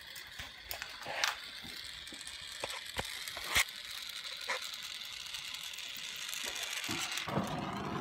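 Gas torch flame hissing steadily as it heats a snap ring to draw its temper, with a few sharp metal clicks and taps from tools on the ring.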